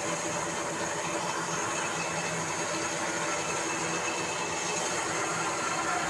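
Large sawmill band saw running steadily: an even hiss with a low steady hum from its motor and blade.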